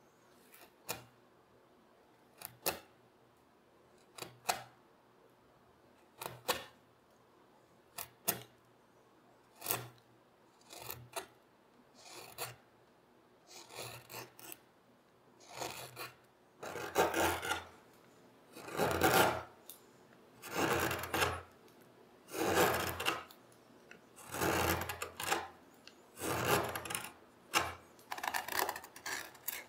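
A carving knife cutting into a walnut stool seat in single strokes. The first cuts are short and crisp, about every second and a half. About halfway through they turn into longer, louder scraping strokes, about one every two seconds.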